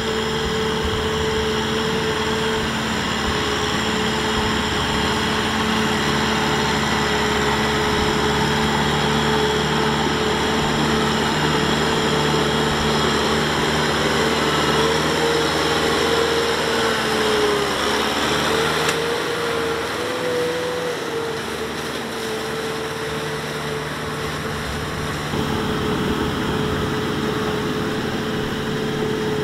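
Farm tractor's diesel engine running steadily as it hauls a loaded trailer through a rice field. Its note wavers up and down about two-thirds of the way through, dips slightly, then picks up again near the end.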